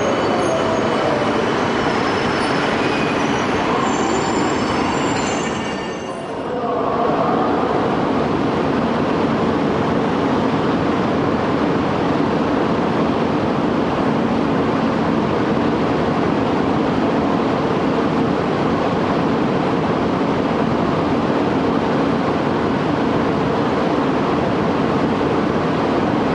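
Tohoku Shinkansen trains at a station platform. First, an E2 series train moves past with high squealing tones over its running noise. After a brief dip about six seconds in, there is steady rolling noise as an E5 series train comes in along curved track.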